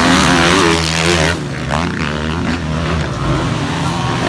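Motocross dirt bike engines revving, their pitch rising and falling, loudest in the first second or so.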